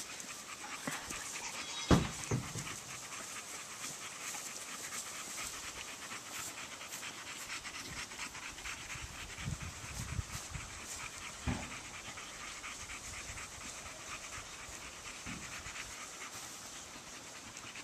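Puppy panting steadily and rapidly, hot and tired from running. A couple of dull thumps, about 2 seconds and 11 seconds in.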